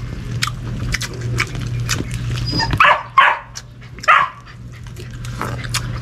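A dog giving three short barks about halfway through.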